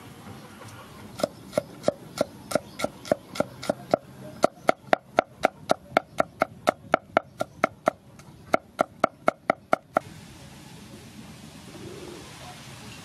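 Knife chopping garlic cloves on a wooden cutting board: regular knocks of the blade on the board, about three a second at first, then quicker at about four a second, stopping about ten seconds in.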